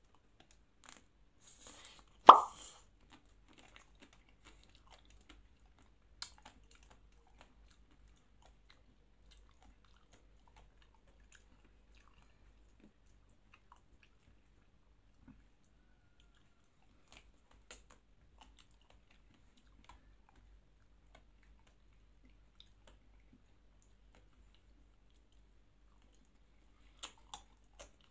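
Eating a Magnum chocolate-coated ice cream bar: one sharp crack about two seconds in as the chocolate shell is bitten through, then faint scattered chewing and mouth sounds, with a few clicks near the end.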